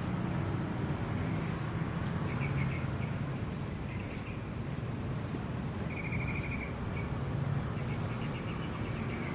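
A small bird chirping in short, rapid trills, several times, over a steady low rumble like distant traffic or an engine running.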